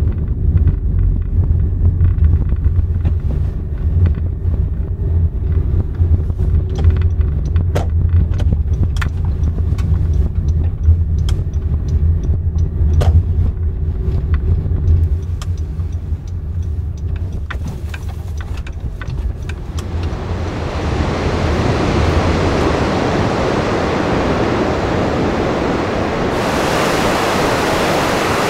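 Low, steady rumble of a Honda N-VAN being driven, heard from inside, with scattered light clicks. About two-thirds of the way through it gives way to a loud, steady rush of running water.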